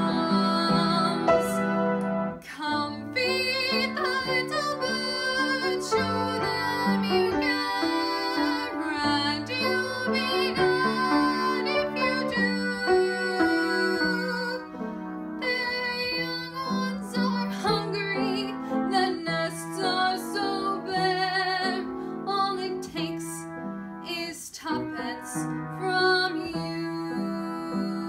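A teenage girl singing solo with grand piano accompaniment. Her voice drops out briefly about halfway through and again near the end while the piano carries on.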